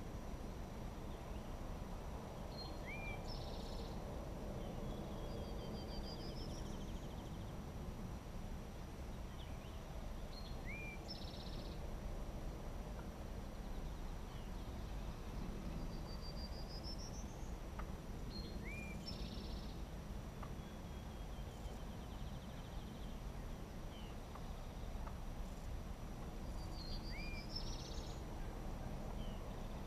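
A songbird sings the same short phrase four times, about every eight seconds. Each phrase is a quick upward chip, a buzzy note, a rising run and a trill. Under it runs a steady low outdoor rumble.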